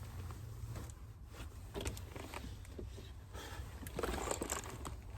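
Blankets and belongings being handled inside a camper van: scattered small knocks and a burst of rustling about four seconds in, over a steady low hum.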